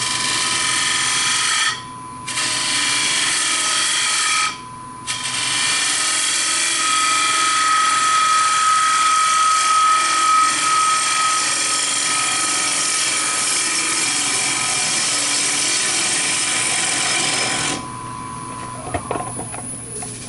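Turning tool taking a light facing cut across a spinning wooden plate blank on a lathe: a steady hissing scrape of the cut, with two brief breaks in the first five seconds where the tool comes off the wood, stopping about 18 seconds in. A thin steady whistle stands out for a few seconds in the middle.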